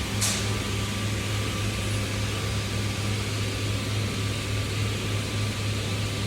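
Steady mechanical hum of a machine running, with a low even drone and a hiss over it, and one short click about a quarter of a second in.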